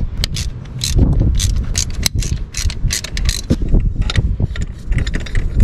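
Irregular metallic clicks and clinks as a steel three-arm pulley puller and its bolts are handled and fitted to an engine's crankshaft pulley.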